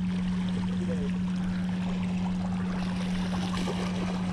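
A steady low hum over the even rush of the river.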